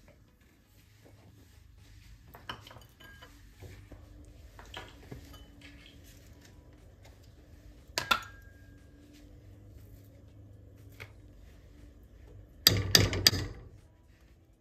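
A steel spoon knocking against a metal kadai: a few light knocks, one sharp ringing clink about eight seconds in, and a quick cluster of louder clanks near the end as a spoon of ghee goes into the semolina. A faint steady low hum runs underneath.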